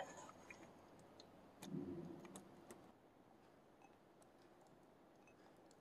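Faint clicks and one short, soft squelch about two seconds in, from a wooden spoon stirring cooked tapioca pearls in thick brown sugar syrup in a bowl.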